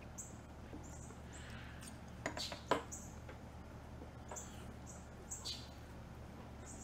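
Faint, scattered high chirps of small birds, with a few soft clicks a little over two seconds in.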